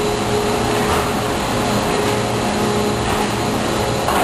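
Injection molding machinery running: a steady mechanical hum with a couple of steady tones over a dense noise.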